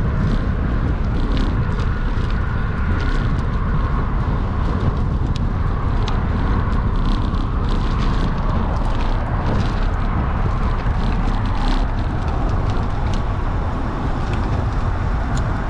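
Road bike rolling over a rough, bumpy paved pathway: a steady low rumble with wind buffeting the microphone, and many sharp clicks and rattles from the jolts.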